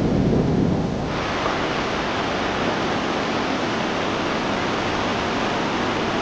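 Steady rush of a fast glacial-melt mountain stream pouring over rocks. For about the first second there is a low wind rumble on the microphone, then the sound switches abruptly to the full, even rush of the water.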